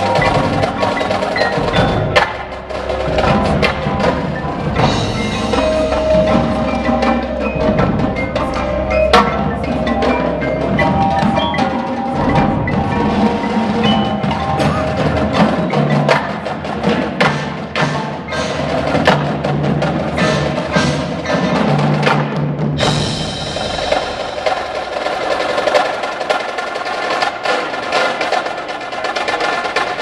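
Indoor winter drumline playing: snare drums, tenor drums and bass drums striking rhythmic passages over a front ensemble of marimba-style mallet keyboards, with many sharp strikes over ringing pitched notes.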